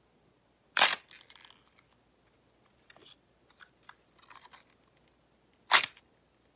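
A bunch of celery stalks twisted and snapped by hand: two loud cracks about five seconds apart, with smaller crunching and crackling between them. This is Foley for bones crunching as a body is impaled.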